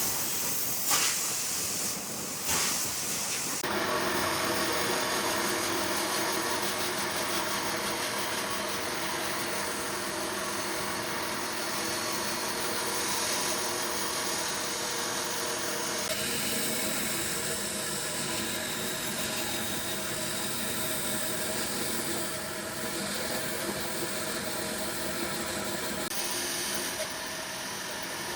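A power tool running steadily, a motor hum under a hiss, after a couple of short bursts of noise at the start. Its sound shifts about 16 seconds in and again near the end.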